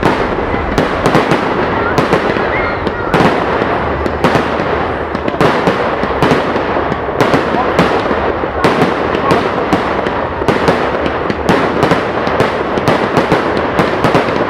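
Fireworks display going off: a constant dense crackling with sharp bangs every second or so.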